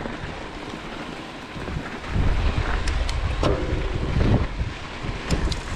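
Wind buffeting the microphone over the low rumble of mountain-bike tyres rolling on a dirt road. The rumble grows louder about two seconds in, and a few sharp clicks come through.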